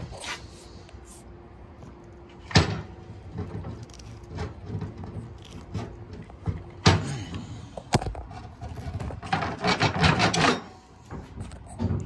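Metal knocks and clicks as pliers work a steel part free of its bushing in a machine: a sharp knock about 2.5 seconds in, another about 7 seconds in, then a run of quick clicks and scrapes near the end.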